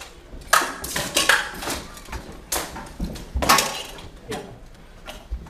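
Steel swords clashing: a string of sharp metallic clashes, each ringing briefly, with four loud ones in the first three and a half seconds among fainter ones.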